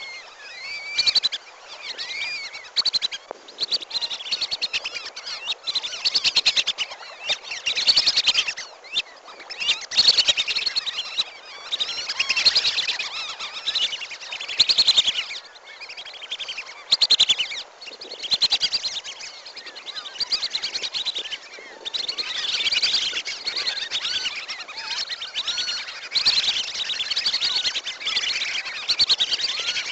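A flock of wandering whistling ducks calling: dense, overlapping high whistles and twitters with no pauses, rising and falling in loudness. This is a recording used as a lure call.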